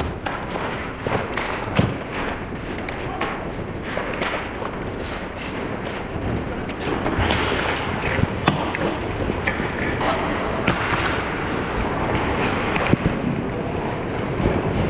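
Ice hockey play: skate blades scraping the ice, with sharp clacks of sticks and puck and players' voices calling out. The scraping grows louder and hissier about seven seconds in, with a few sharp hits standing out after that.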